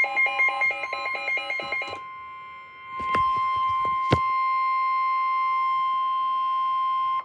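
Emergency weather alert tones: a rapidly repeating electronic beep, about five beeps a second, gives way after about two seconds to a single steady alarm tone, the weather radio warning alarm tone that comes before a National Weather Service warning. A few sharp clicks sound over the steady tone about three and four seconds in.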